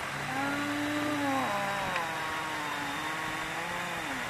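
Truck engine pulling away: its pitch holds, drops sharply about a second and a half in, then climbs slowly and falls off near the end.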